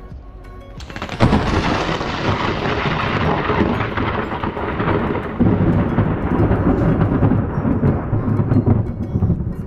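A thunderclap: a sudden crack about a second in, then a long, heavy rolling rumble that swells again around the middle while its upper part slowly fades.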